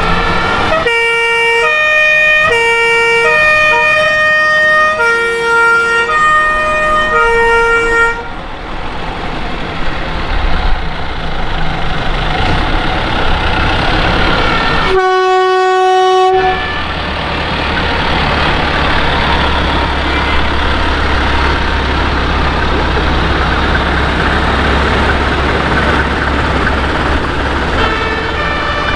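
Vintage East German fire engines passing in procession. A two-tone siren alternates high and low notes, about one a second, for roughly seven seconds, then engines run under it; about halfway through a single horn note is held for a second and a half, followed by a deep diesel rumble, and the two-tone siren starts again near the end.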